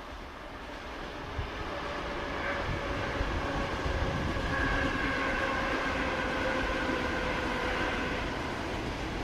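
EP2D electric multiple unit passing, a steady rumble with a whine of several steady tones on top. It grows louder over the first few seconds as the train approaches, then holds.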